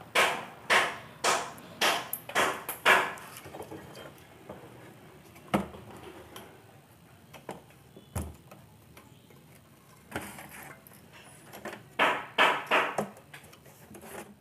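Clicks and knocks from a CRT television's main circuit board and its metal-shielded parts being handled and set back in the set: a run of sharp clicks about two a second at first, scattered knocks in the middle, and another short run of clicks near the end.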